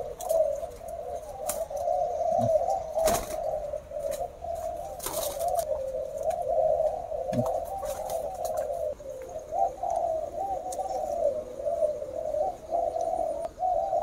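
Many caged spotted doves cooing at once, their calls overlapping into a steady, unbroken chorus. A couple of brief sharp clicks stand out about three and five seconds in.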